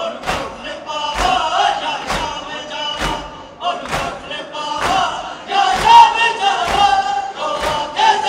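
A large crowd of Shia mourners chanting in unison while doing matam, beating their chests together so that the massed slaps land in a steady beat about once a second.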